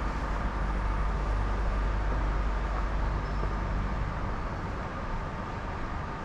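Underground subway platform ambience: a steady low rumble with a faint hum on top. The rumble swells for a few seconds and then eases off.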